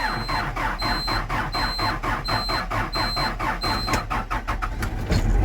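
Cat 420 IT backhoe's diesel engine cranking on the starter without glow plugs, a rapid, even chugging, with a short high beep repeating over it. The beeping stops about four seconds in, and the engine catches and runs near the end: a somewhat hard cold start.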